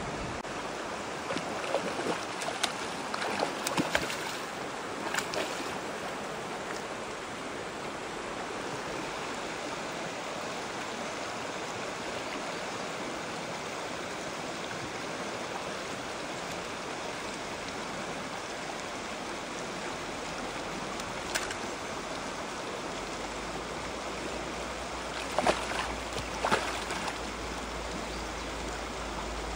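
Mountain stream rushing steadily, with a few short knocks in the first few seconds and again near the end.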